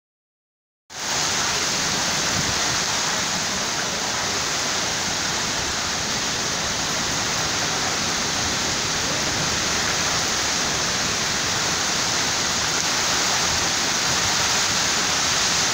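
Heavy tropical downpour driven by strong wind: a dense, steady rushing hiss of rain that cuts in abruptly about a second in.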